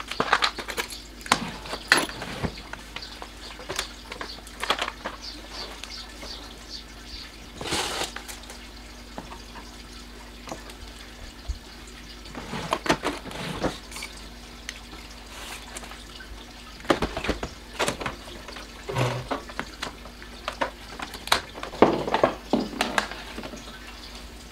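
Plastic bottles, jars and containers being picked up, handled and set down on a granite countertop: irregular knocks, clicks and clatter, coming in small clusters every few seconds.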